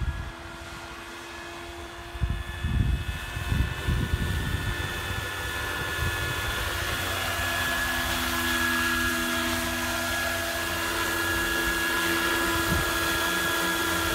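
Roban EC-225 Super Puma 700-size electric model helicopter, its electric motor and rotors making a steady whine with several held tones, growing louder as it comes in low and hovers close by. Gusts of wind buffet the microphone about two to five seconds in.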